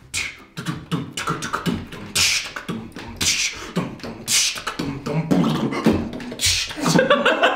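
A man beatboxing a drum beat with his mouth: low kick-drum thumps and hissing snare-like bursts, the hissing hits coming about once a second.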